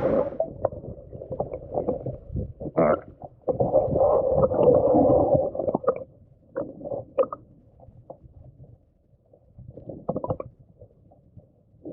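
Kayak paddle strokes with water gurgling and splashing against the hull, in irregular dull splashes that thin out after about six seconds.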